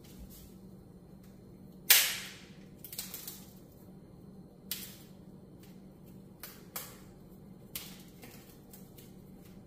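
Pan of olive oil heating on the stove, crackling: one loud sharp pop about two seconds in, then about five smaller scattered pops.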